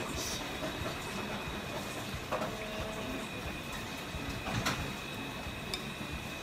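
Steady mechanical hum and hiss of room noise, with two faint high steady tones, and a few light clicks of a spoon and chopsticks against a ramen bowl.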